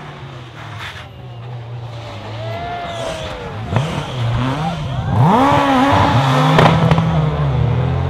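Rally car engine revving hard as it approaches and passes, pitch climbing and dropping with gear changes and lifts off the throttle and getting louder through the middle. Two sharp exhaust bangs cut through, one a little under four seconds in and one near seven seconds.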